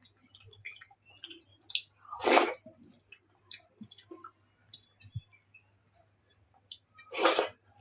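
Close-miked chewing of food, with small wet clicks and mouth sounds throughout. Two louder short noisy bursts come about two seconds in and again near the end.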